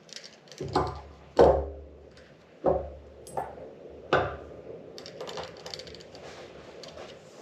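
Small metal parts and hand tools clattering on a workbench: four sharp knocks with a brief metallic ring in the first few seconds, the second one loudest, then lighter clicking and rattling.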